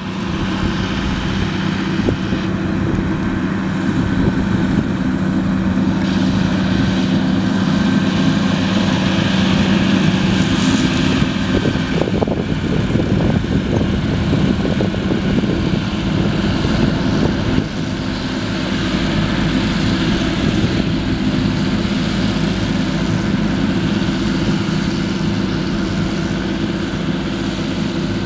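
A John Deere 7820 tractor's diesel engine running steadily under load while it pulls a Bednar MZ 6000 trailed mulcher, whose rotors shred the pasture grass. It is a continuous drone that turns rougher for a few seconds past the middle and dips briefly in loudness about 17 seconds in.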